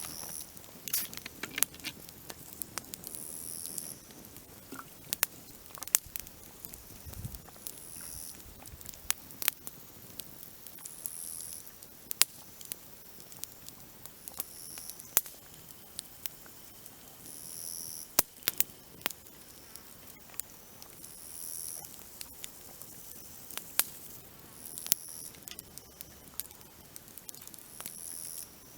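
Grasshoppers chirping in short high bursts, one every two to three seconds, over a faint hiss. Scattered sharp clicks and crackles run through it.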